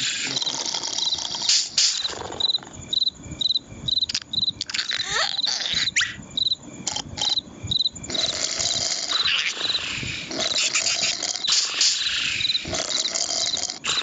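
Cartoon soundtrack with cricket chirping: short, even chirps about three a second. Scattered knocks and a couple of quick rising whistles come around the middle, and a busier, noisier stretch of sound effects follows in the second half.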